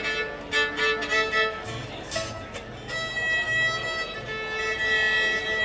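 Live string band playing an instrumental passage, a fiddle carrying the melody with low bass notes underneath in the middle stretch.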